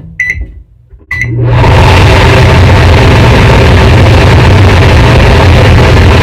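Microwave oven keypad beeping a few times, then the oven starting up and running with a loud, steady mains hum, heating chocolate chips to melt them.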